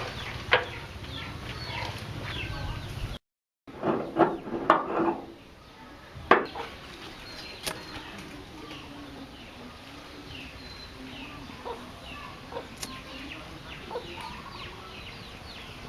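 Birds calling with short, repeated falling chirps over a faint background. A few loud knocks come around the fifth and sixth seconds, and the sound cuts out briefly about three seconds in.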